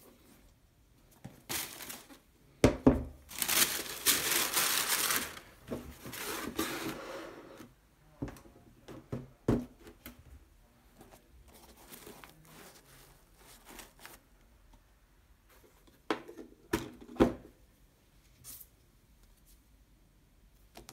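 Tissue paper rustling and crinkling for several seconds as a sneaker is handled in its cardboard box. A few sharp knocks come from the shoes and box being set down, the loudest early in the rustling and a pair about three-quarters of the way through.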